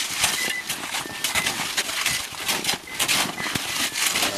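Several shovels chopping into packed snow and scraping and flinging it back: a fast, irregular run of crunching strikes from many diggers working at once.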